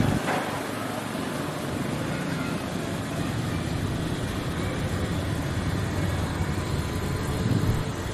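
Steady low rumble of motor-vehicle noise, swelling briefly near the end.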